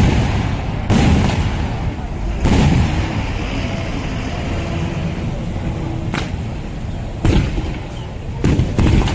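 Traditional Kerala temple fireworks (vedikkettu) going off: about six loud bangs at irregular intervals over a few seconds, each trailing off in a low rumble.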